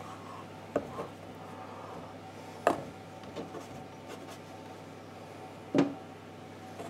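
A metal round pastry cutter knocking against a cutting board as rounds are cut from scone dough and the cutter is set down: three louder knocks spread through, with fainter handling taps between, over a faint steady hum.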